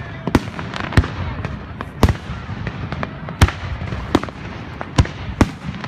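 Aerial fireworks shells bursting: a string of sharp bangs, about seven loud reports spaced unevenly over the few seconds, with smaller pops between them.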